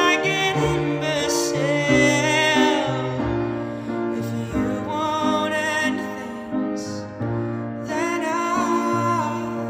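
Male pop singer singing a slow, tender ballad over piano accompaniment, holding notes with vibrato.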